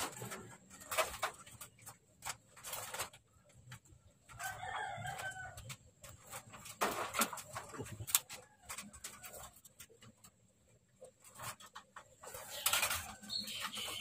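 Scattered clicks, knocks and rattles of a wire-mesh bird cage and a small wire transfer box being handled as small birds are moved from one into the other. A bird calls once, about a second long, about four and a half seconds in, and there is a brief high call near the end.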